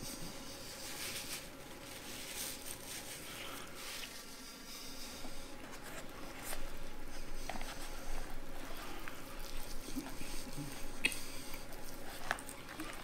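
Chewing fried chicken, then fingers tearing apart pieces of breaded fried chicken in a plastic tray, with small crackles and clicks from about halfway in.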